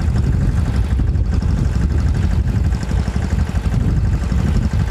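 Engine of a sanedo, a small home-built ride-on farm machine, running steadily with a low, rapidly pulsing sound while it pulls a ghoda sati weeding cultivator between cotton rows.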